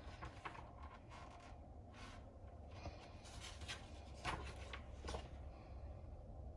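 Faint handling noises of plastic coffee-maker parts: light clicks and rubbing as the parts are turned over and fitted, with two sharper ticks about four and five seconds in, over a low steady hum.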